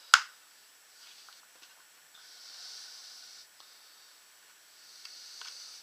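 A single sharp click just after the start as the paintball goggles are handled, then faint soft hissing twice with a few small ticks.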